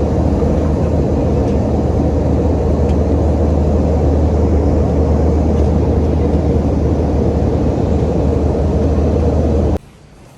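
Airliner cabin noise: the steady, loud rumble of the jet engines and airflow heard from a passenger seat, with a deep hum underneath. It cuts off suddenly near the end.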